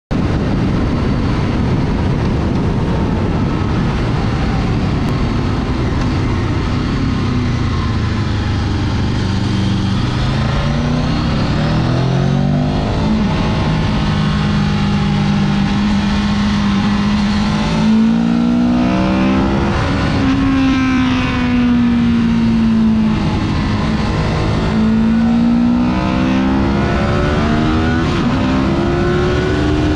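Honda VFR800X Crossrunner's V4 engine under way, its pitch climbing and dropping several times as the rider works the throttle, over steady wind and road rush from riding.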